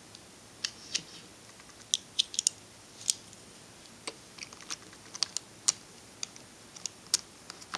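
Plastic pieces of a Rubik's 2x2x4 tower cube clicking and tapping against each other as they are fitted onto the core by hand: many light, irregular clicks.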